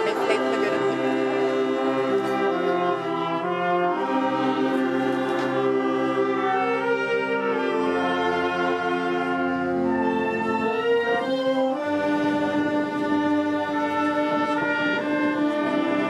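Orchestral background music, with brass playing held chords that change every second or few.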